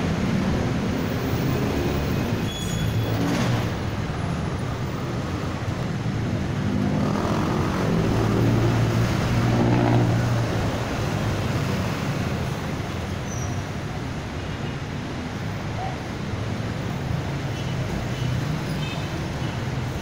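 Road traffic noise: a steady low rumble of vehicle engines, swelling a little about eight to ten seconds in.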